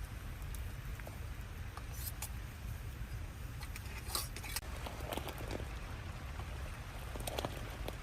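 Rain falling, with scattered drops pattering and ticking over a steady low rumble.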